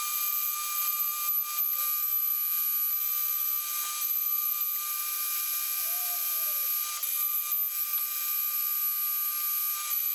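Metal lathe boring a bore with a long, skinny boring bar, giving a steady, even-pitched whine with overtones: the thin, far-overhung bar chattering in the cut.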